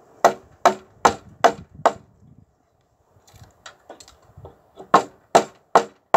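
Steel chisel chopping into seasoned wood in sharp repeated knocks, about two and a half a second, cutting a notch for a joist. Five knocks, a pause with a few faint light taps, then four more knocks near the end.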